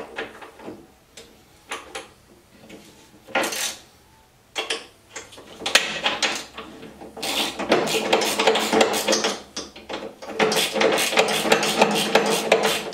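A wrench working bolts on a stair-climbing hand truck's steel frame. First come scattered metal clicks and knocks. From about seven seconds in there is a fast, steady ratcheting as the bolts are turned.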